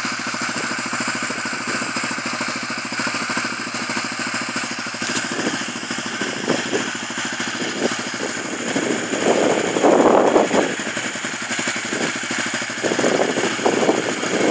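Yamaha Raptor 700R ATV's single-cylinder four-stroke engine running steadily while the quad is stuck in mud and water. Louder rough bursts come around ten seconds in and again near the end.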